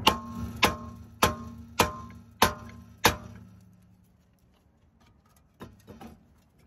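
Copper hammer striking a rusted, seized Audi A4 brake rotor six times, about one blow every two-thirds of a second, the disc ringing after each blow as it is hammered to break it free of the hub. A few light knocks near the end.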